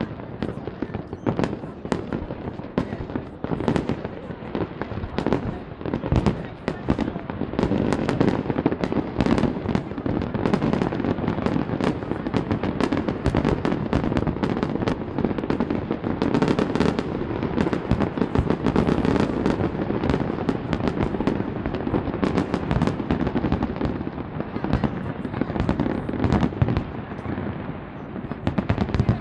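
Fireworks display: a dense, unbroken run of aerial shell bursts, bangs and crackles overlapping several to the second.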